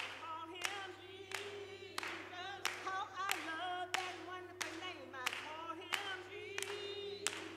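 A trio of women singing together, unaccompanied, with hand claps on the beat, about three claps every two seconds.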